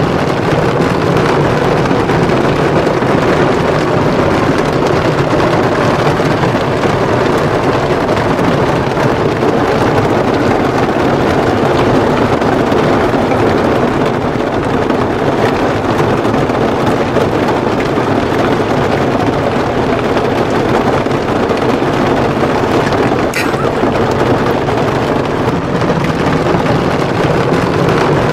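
Heavy rain drumming steadily on an SUV's roof and windshield, heard from inside the cabin.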